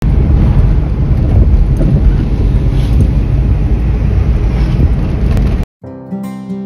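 Loud, heavy low rumble of wind and road noise inside a moving car on a highway. About five and a half seconds in it cuts off abruptly, and strummed acoustic guitar music starts.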